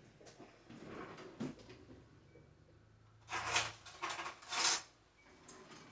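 Kitchen drawer opened and cutlery rattled through to fetch a tablespoon: two short bursts of clatter past the middle, with faint shuffling before them.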